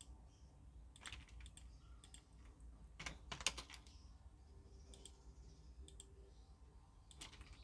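Faint, scattered clicks of a computer mouse and keyboard, some single and a quick cluster about three seconds in, over a low steady hum.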